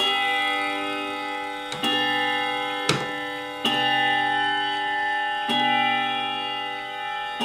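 Hermle wall clock striking the hour on its chime rods: four strokes about two seconds apart, each ringing on with a cluster of tones and fading slowly, with the clock's ticking beneath.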